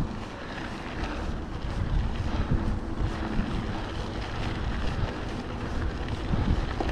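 Wind rumbling on the microphone over the steady noise of a mountain bike rolling along a trail.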